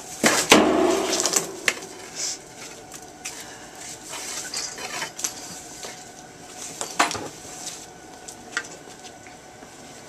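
Rubber garden hose being coiled onto a pile by hand: a rustling, dragging stretch in the first second and a half, then scattered knocks and clinks as it is handled.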